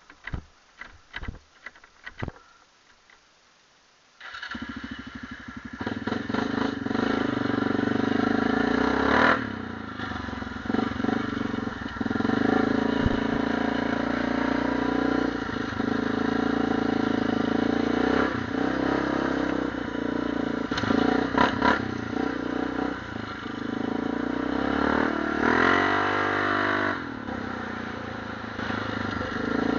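A few sharp knocks, then about four seconds in an ATV engine starts up and runs, revving up and down as the quad is ridden, with the throttle easing off and opening again several times.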